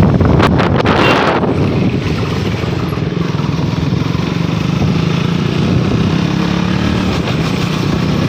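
KTM motorcycle engine running steadily while riding, a constant hum. A loud rushing noise covers it for the first second and a half.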